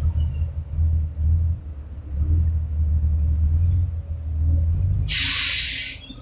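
Heavy tanker truck's engine rumbling low as it crawls around a tight bend. Near the end comes a hiss of about a second that cuts off sharply: the truck's air brakes releasing.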